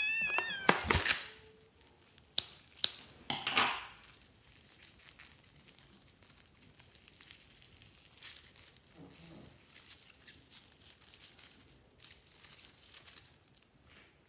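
Scissors cutting open a foam-filled rubber balloon with a sharp snap about a second in, followed by a few clicks. The foam is then squeezed out of the rubber into a glass tray with faint crackling and squishing.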